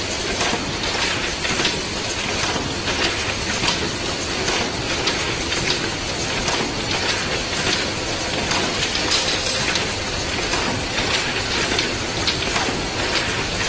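Automatic rotary perfume bottle filling machine running: a steady mechanical clatter with frequent sharp clicks and a hiss from its pneumatic cylinders and air lines.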